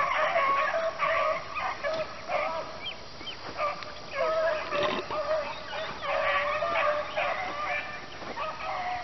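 A pack of beagles baying together in chorus, many overlapping cries: hounds giving tongue as they run a rabbit's scent track.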